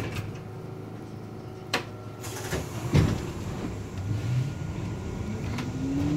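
Interior of an R62A subway car standing at a station: low rumble with two sharp knocks, then near the end the traction motors start a rising whine as the train begins to pull out.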